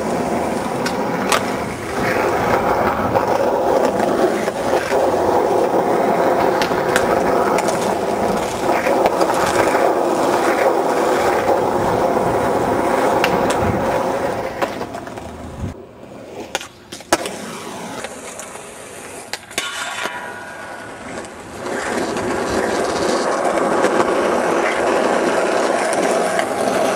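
Skateboard wheels rolling over rough pavement, a steady rolling noise broken by sharp clacks of the board popping and landing. The rolling drops away for a couple of seconds a little past halfway, then returns.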